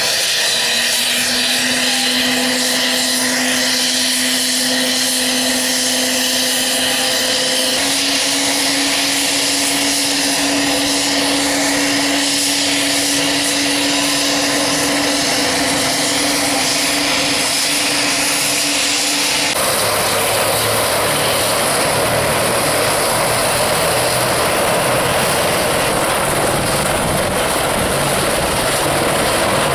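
AH-64D Apache helicopter's twin turboshaft engines running on the ground with the rotors turning: a loud, steady turbine whine over a hum that steps up slightly in pitch about a quarter of the way in. About two-thirds through, the sound changes abruptly to a broader, lower rotor and engine noise.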